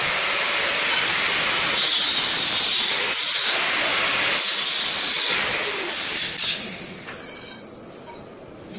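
Handheld angle grinder running against a stainless steel railing pipe, a loud steady hissing grind. It stops about two-thirds of the way through, leaving faint clinks of metal being handled.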